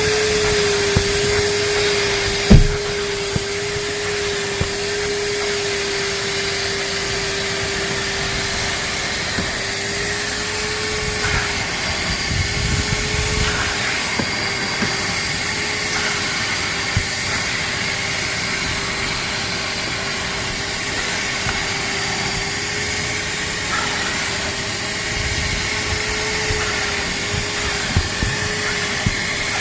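Vacuum cleaner running steadily with a constant motor whine over airflow hiss. A single sharp knock about two and a half seconds in, with a few faint clicks and rattles along the way.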